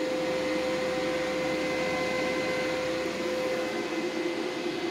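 Water-electrolysis hydrogen generator rig running under power: a steady hum with one constant tone over an even hiss.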